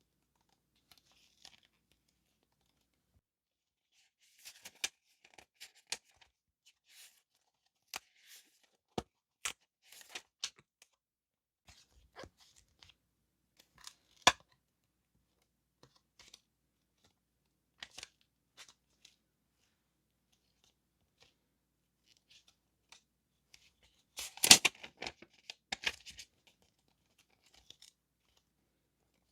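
Paper journaling stationery being handled: scattered soft rustles, taps and clicks of paper and packaging, with a louder burst of rustling and tearing near the end.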